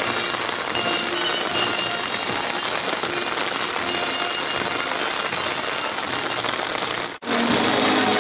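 Steady rain falling on wet pavement and umbrellas, an even hiss. It breaks off abruptly about seven seconds in, and a louder sound follows.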